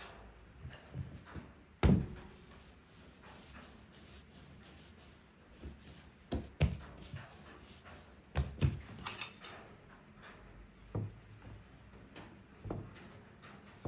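Dough being rolled and pressed by hand on a wooden board: soft rubbing broken by scattered knocks against the board, the loudest about two seconds in. Near the end a cleaver knocks down into the dough and board.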